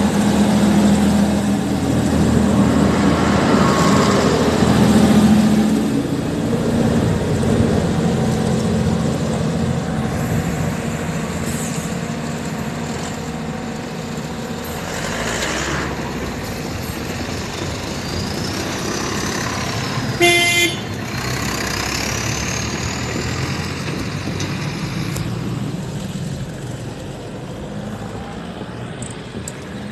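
MAN diesel railcar pulling away down the line, its engine noise loudest at first and fading steadily as it recedes. About two-thirds of the way through it gives one short horn toot.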